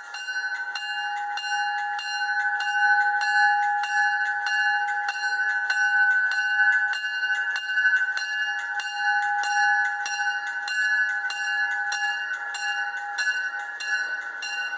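Railroad crossing bell ringing rapidly and steadily, about three strikes a second, as a train approaches the crossing.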